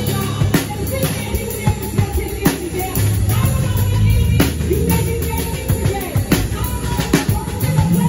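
A drum kit played with sticks in a full band groove, with cymbal and snare accents over sustained bass guitar notes and other melodic instruments.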